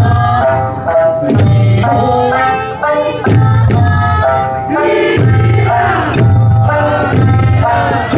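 Eisa music: an Okinawan folk song sung over sanshin, with eisa drums struck in a steady rhythm.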